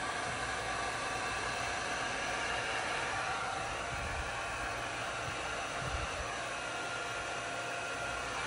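Heat gun blowing steadily, a continuous rushing hiss.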